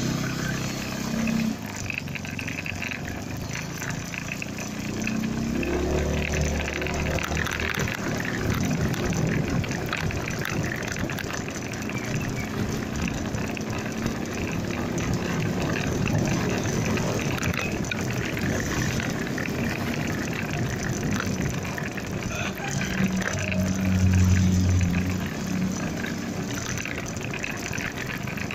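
Steady rush of wind and road noise on the phone camera of a moving motorcycle in traffic, with a louder low engine hum near the end.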